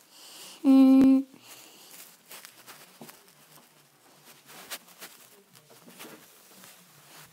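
A short, steady hummed note from a person's voice about a second in, the loudest sound, followed by faint scattered clicks and rustles.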